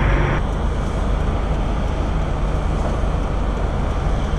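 Semi truck's diesel engine idling with a steady low rumble; a hiss over it cuts off suddenly about half a second in.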